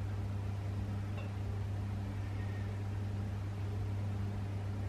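A steady low hum with a faint even hiss over it, unchanging throughout.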